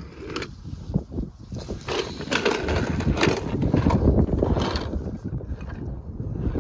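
Small die-cast toy cars clattering and sliding across the bottom of a clear plastic storage box: a few clicks as one is set in, then a longer run of rattling as the box is lifted and tilted. Wind buffets the microphone.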